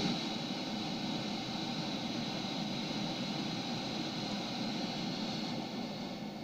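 Steady hiss of radio static from a software-defined radio receiver tuned near 433.9 MHz, the band used by wireless remote controls; no distinct signal stands out from the noise.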